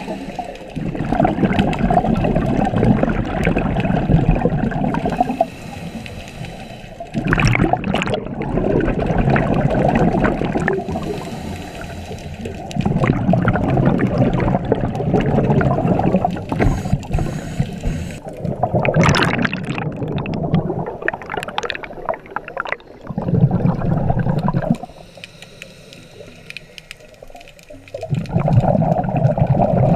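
Scuba diver breathing through a regulator underwater. Exhaled air leaves as loud bubbling, gurgling rushes every few seconds, with quieter gaps between them for the inhale.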